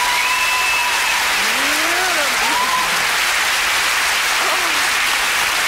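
Studio audience applauding steadily, with a few high, rising and falling calls over the clapping.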